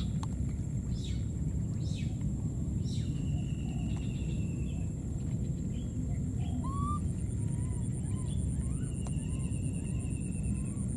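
Steady low rumbling outdoor noise throughout, with faint high chirps and a few short rising calls from small animals around the middle.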